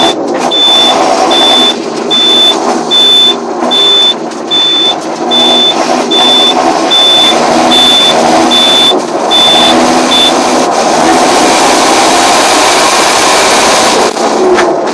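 John Deere 7530 tractor's turbo diesel engine running under load, with a high backup alarm beeping about every 0.8 s that stops about ten seconds in.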